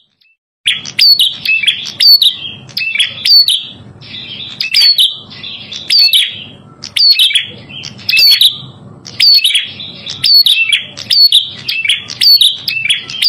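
Prenjak kepala merah (red-headed prenjak) singing: rapid, repeated high chirping phrases that begin under a second in after a brief pause and then run on without a break.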